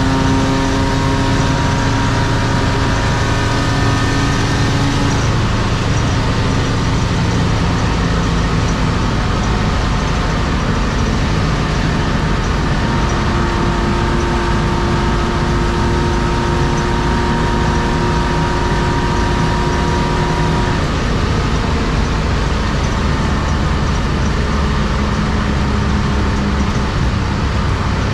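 Interior sound of a 1993 BMW E36 325i's M50B25 2.5-litre inline-six with Schmiedmann headers and an aftermarket TA Technix exhaust, cruising at steady revs. The engine drone holds a nearly constant pitch, over road and wind noise inside the cabin.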